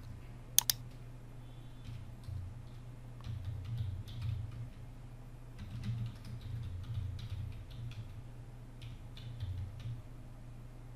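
Typing on a computer keyboard: irregular runs of light keystrokes, with two sharp clicks just after the start, over a steady low hum.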